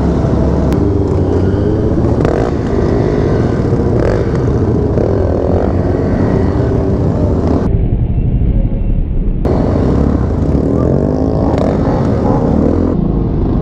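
Motorcycle engine running while riding, its pitch rising and falling with the throttle a few times, over a steady low rush of wind noise.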